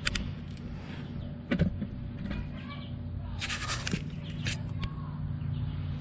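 A sharp knock about one and a half seconds in, then a short scraping rustle and a lighter click, from hand work on a pickup-based SUV's front disc-brake assembly during a pad change, over a steady low hum.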